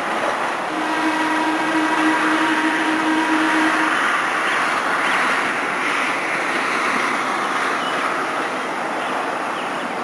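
Electric interurban railcar sounding its air horn in a long blast, from about a second in until about four seconds in, following an earlier blast. Then the car's steady rolling noise of wheels on the rails as it passes.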